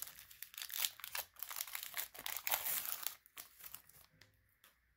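Foil wrapper of a Pokémon TCG booster pack crinkling as it is torn open by hand and pulled off the cards: dense crackling for about three seconds, then a few lighter rustles.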